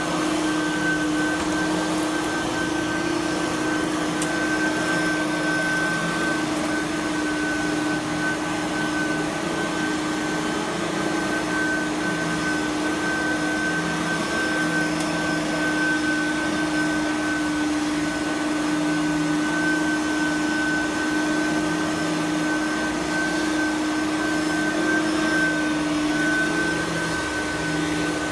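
Simplicity Freedom lightweight upright vacuum cleaner running steadily, a high whine over a lower hum.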